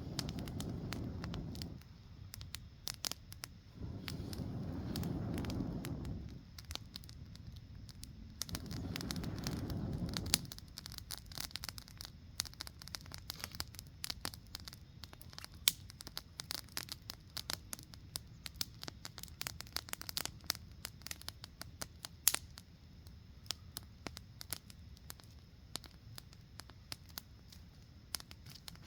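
Small wood campfire crackling, with irregular sharp pops and snaps throughout. Three low rushing swells of a couple of seconds each come in the first ten seconds.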